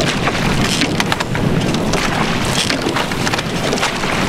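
Rowing boat under way: oars knocking and clicking in their oarlocks stroke after stroke, over a steady rush of water and wind.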